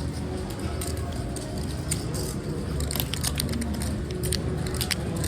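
Clay poker chips clicking and clattering in quick, irregular taps as players handle and stack them, over the steady hum and distant chatter of a card room.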